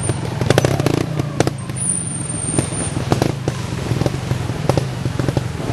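Vintage trial motorcycle engine running at low revs, with many irregular sharp pops and crackles over a steady low drone.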